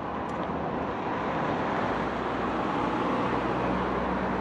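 Steady outdoor city ambience of road traffic, with a low engine hum coming in about two seconds in.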